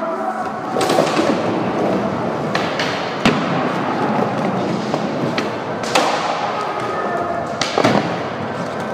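Skateboard wheels rolling on plywood ramps in a continuous rumble, broken by several sharp clacks and thuds of the board and trucks hitting the ramps and a box.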